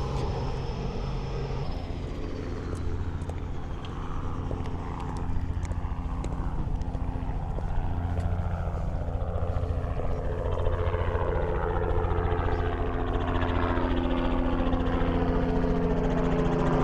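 Helicopter engine and rotors running nearby, a steady low hum that grows gradually louder, with a whooshing sound sweeping down in pitch through the second half.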